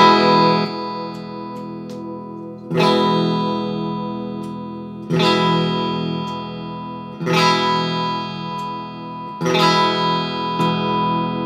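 BC Rich B electric guitar played through a Mesa Boogie Badlander amplifier on its clean channel. A chord rings at the start, then four more are strummed about every two seconds, each left to ring and slowly fade.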